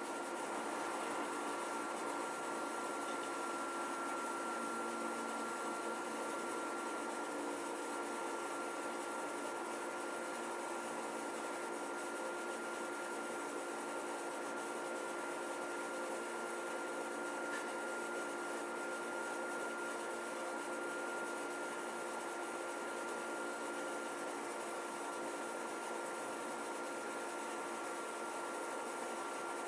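Samsung window air conditioner (AW05B5171TWA) running, a steady machine hum with a thin high whine over the rush of air. The owner complains this machine noise is not quiet whatever the fan or cooling setting.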